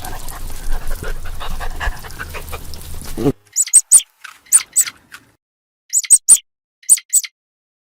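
A dog whimpering over a noisy background, then after a sudden cut, clusters of two or three short, very high chirps separated by silence.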